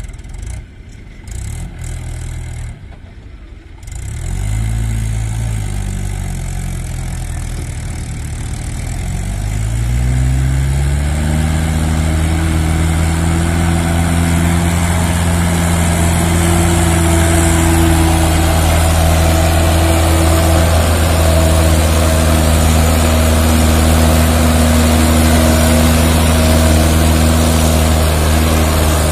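Mahindra 575 DI tractor's four-cylinder diesel engine pulling a trolley through soft sand. It is uneven for the first few seconds, rises in pitch about ten seconds in, then holds a steady, loud note under load, getting louder as it comes closer.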